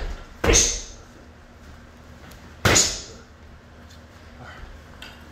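Punches cracking into leather boxing focus mitts: two loud, sharp smacks, about half a second and nearly three seconds in, each with a short echo.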